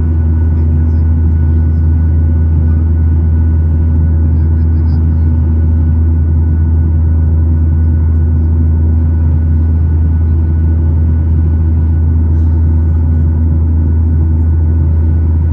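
Steady low drone inside the cabin of a Boeing 737-900 climbing after takeoff: its CFM56-7B turbofan engines and airflow heard from a window seat, with a few faint steady tones above the rumble.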